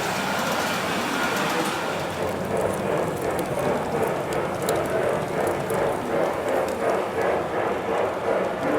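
LGB G-scale model train rolling along the track: a steady rumbling clatter of wheels on rail that settles into an even pulse about two seconds in.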